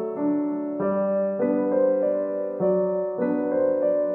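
Instrumental background music: a keyboard playing held notes and chords that change about every half second.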